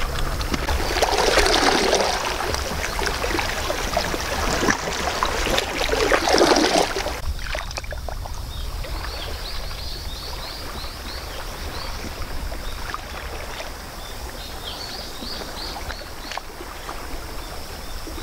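Sea water lapping and washing against shore rocks in two louder surges, with wind rumbling on the microphone. About seven seconds in, the sound drops suddenly to a quieter, gentler lapping with a few faint high chirps.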